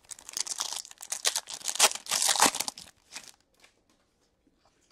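Plastic trading-card pack wrapper crinkling and tearing as it is opened and handled, a dense crackling for about three seconds, loudest near the middle. It thins to a brief rustle and a few light ticks.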